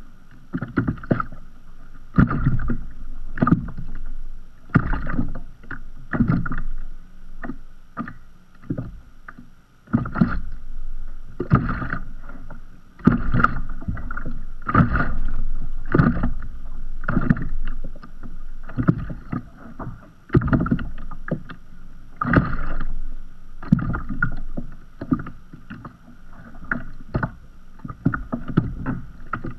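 Small sea waves lapping against the hull of a floating kayak: irregular splashes about every second or so, with low sloshing of water in between.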